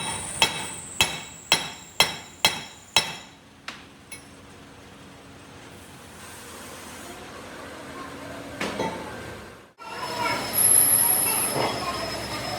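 Hammer blows on steel, about two a second, each ringing briefly, tapering off after about three seconds into steady workshop noise. An abrupt cut near the end brings in louder metallic clatter.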